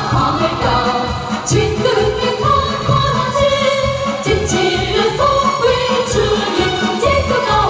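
Several women singing together into microphones over amplified instrumental accompaniment with a steady beat.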